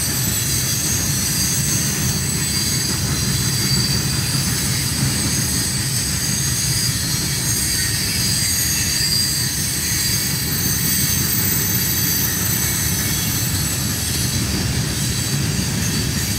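Loaded ballast hopper cars rolling past on the rails: a steady low rumble from the wheels and trucks, with high-pitched wheel squeal held throughout.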